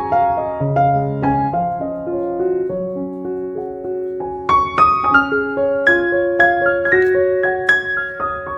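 Background piano music: notes struck one after another in a slow, gentle melody, a little louder from about halfway through.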